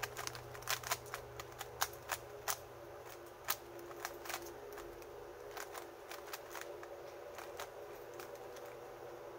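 GAN 3×3 speed cube's plastic layers being turned quickly by hand: an irregular run of sharp clicks and clacks, fewer after about five seconds.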